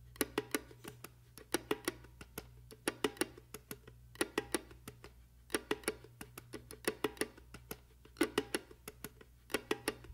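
Percussive intro of a music soundtrack: sharp wooden clicks in uneven clusters of two to four over a low steady hum.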